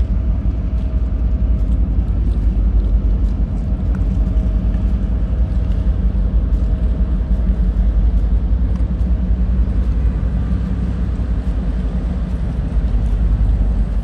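Deep, steady rumble of a large ship's engines as it passes close by, with a faint machinery hum on top.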